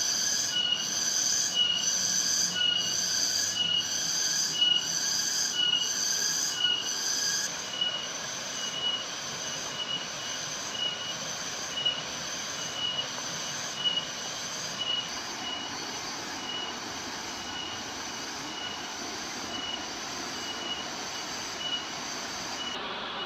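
Steady rush of a waterfall under a rhythmic, high-pitched pulsing call, about one and a half pulses a second. The call is loudest for the first several seconds, then fainter, and its highest part stops shortly before the end.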